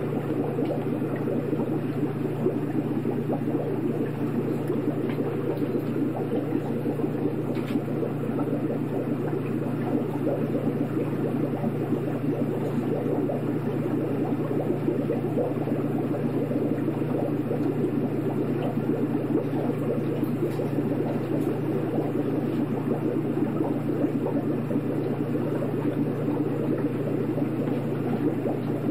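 Aquarium water bubbling and running steadily over a constant low hum.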